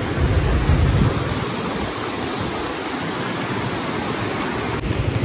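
Swollen, fast-flowing floodwater of a stream rushing under a bridge: a steady rushing noise, with a low rumble in the first second or so.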